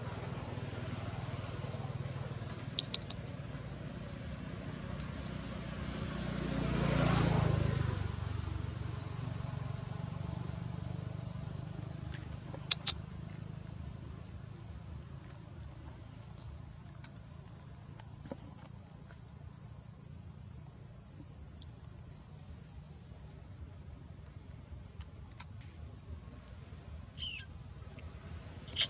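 Steady high-pitched drone of insects, with a motor vehicle passing that swells and fades about seven seconds in, and a few faint sharp clicks.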